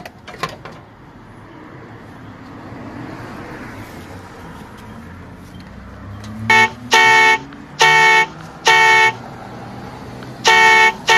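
A car horn honking: four short blasts from just past halfway, then a longer blast near the end, over the sound of a car driving past.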